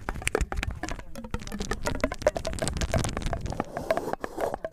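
Dense, irregular crackling clicks throughout, with a faint murmur underneath.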